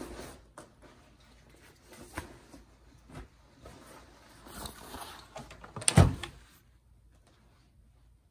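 A backpack being unpacked by hand: rustling and small knocks as its straps and contents are handled, with one louder thump about six seconds in as something is set down.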